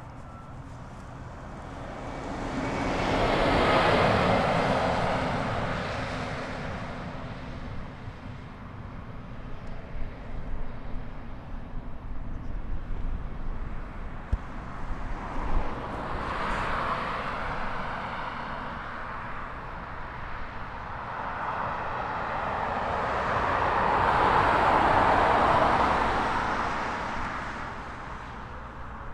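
Jet engines of a DHL Boeing 767-300 freighter running as it taxis onto the runway for takeoff. The jet noise swells twice, about four seconds in and again near the end, over a low steady hum.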